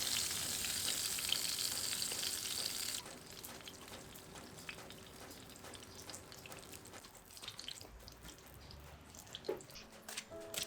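Food sizzling in a hot pan for about three seconds, cutting off abruptly, followed by quieter scattered crackles and ticks.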